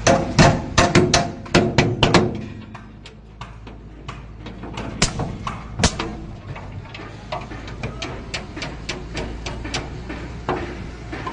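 Hammer blows on timber formwork: a quick run of loud strikes at first, then lighter, fairly regular knocks about two a second, over a steady low hum.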